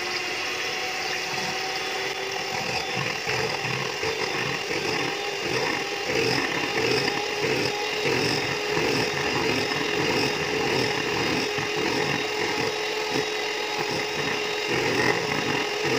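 Electric hand mixer running on high, its beaters whipping liquid cream in a bowl. It is a steady motor whine with the quick churning patter of the beaters through the cream.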